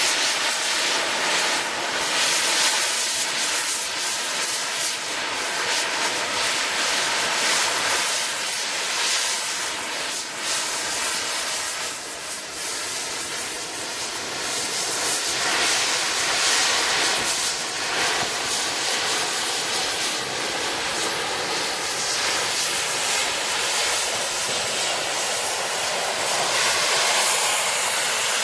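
Gas cutting torch flame hissing steadily and continuously.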